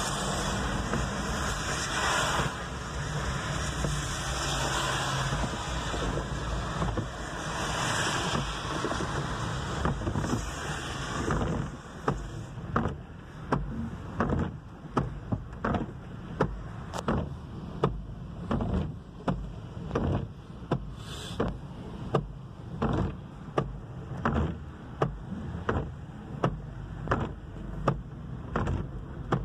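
Inside a car on a wet road: steady hiss of tyres and rain, which drops away about twelve seconds in. The windshield wipers are then heard sweeping with a regular beat, a little more than once a second.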